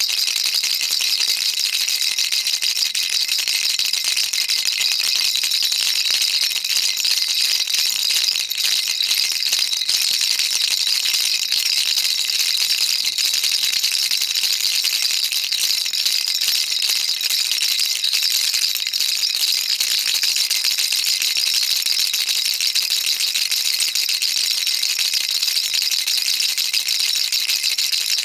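Baby rattle shaken continuously, a dense, even, high rattling of small beads without pauses.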